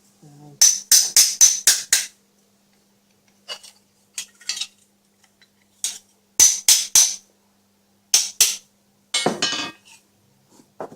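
Hammer striking a sheet-metal edge to fold it over in a homemade bending brake. The sharp metallic blows come in short runs of two to five quick strikes, about four a second, with pauses between the runs.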